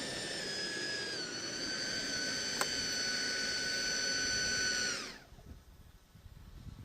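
Whine of the Mir-25 Boxfat RC jet's 145 mm electric ducted fan running at steady throttle, dipping slightly in pitch about a second in, then winding down and cutting off about five seconds in.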